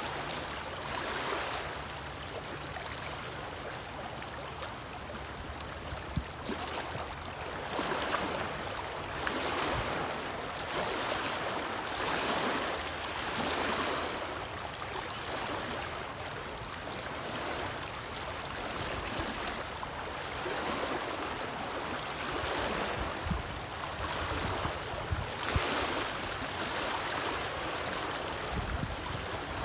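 Small lake waves washing and splashing against a rocky shoreline, swelling and falling every second or two.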